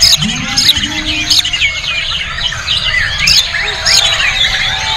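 White-rumped shama singing a fast, unbroken run of sharp whistles, chatters and trills. Other caged songbirds sing over it.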